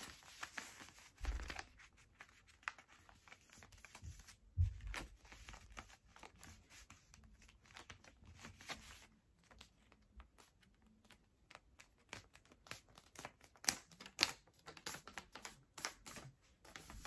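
Printing paper rustling and crinkling as it is folded and creased by hand into a paper dart, a scatter of faint crackles that grows busier near the end. Two soft low thumps, about a second and about four and a half seconds in.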